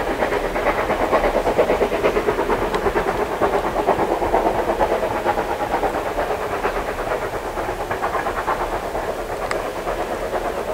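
Ivatt class 2 steam locomotive working hard with a passenger train: rapid exhaust beats and steam mixed with the train running on the rails, easing slightly in loudness as it goes.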